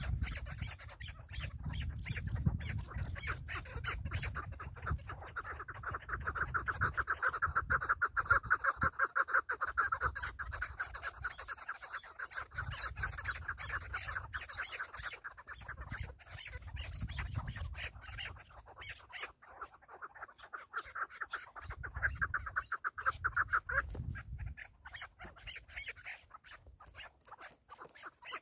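Chukar partridges calling: long runs of rapid, clucking 'chuk' notes, one bout building about five seconds in and another near the end, over a low rumble that comes and goes.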